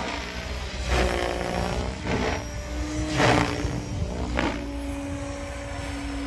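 Electric 700-size RC helicopter, a PSG Dynamics Seven, flying aerobatics: a steady rotor and motor whine, broken four times by a loud blade whoosh about a second apart. During each whoosh the pitch sags as the rotor takes load, then comes back up.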